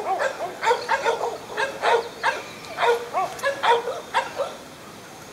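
Dogs barking repeatedly, about three barks a second, stopping about four and a half seconds in.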